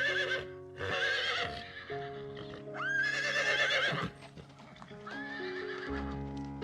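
Horse whinnying four times, each call quavering, the longest about three seconds in, over background music with steady held notes.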